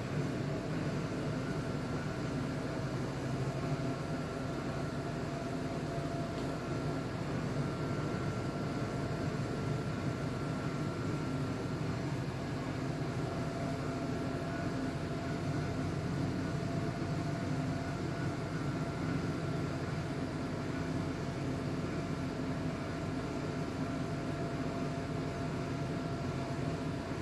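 Steady mechanical hum with an even rushing noise and a faint high whine, unchanging throughout.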